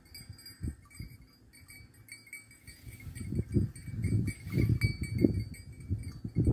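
A flock of sheep grazing in a pasture, with irregular low rumbles that get louder about three seconds in, over faint steady high ringing tones.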